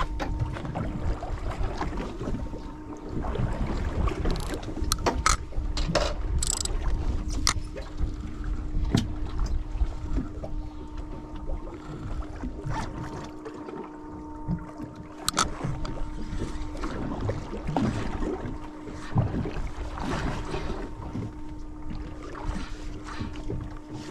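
Sound on a small boat at sea: wind on the microphone and water churning against the hull, under a steady low hum. Scattered clicks and knocks come from a spinning reel being jigged and cranked.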